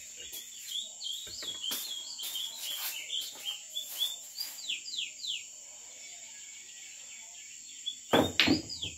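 Repeated short, high, falling chirps over a steady high insect drone. Just after eight seconds in come a few loud, sharp knocks as the cue strikes the cue ball and pool balls clack together.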